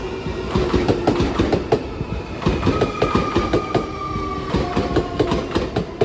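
Nankai 8300 series electric train running at a platform, its traction motors whining in a tone that slowly falls in pitch while the wheels clack over rail joints many times.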